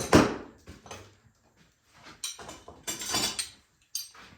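Metal hand tools being gathered up and set down: one loud clank right at the start, then several shorter clatters and knocks a couple of seconds later.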